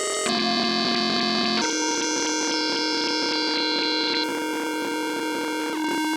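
Knobula Poly Cinematic Eurorack polyphonic synth module playing held chords that change every one to two seconds.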